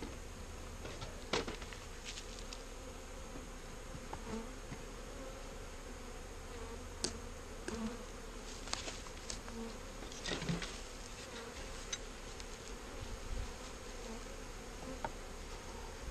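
Honeybees buzzing steadily around an open hive during a package installation. Scattered sharp wooden knocks and clicks from hive frames being handled and set into the box.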